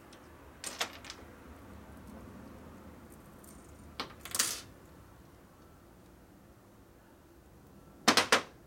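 Small metal objects clinking and clattering as they are handled, in three short bursts: about a second in, around four seconds in, and the loudest near the end.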